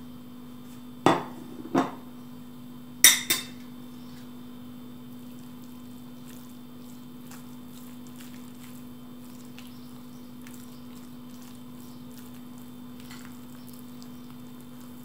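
A metal spoon knocks four times against a dish and a glass mixing bowl in the first few seconds as fillings are scraped in. Then come faint scrapes and ticks of a spoon stirring a thick batter, over a steady low hum.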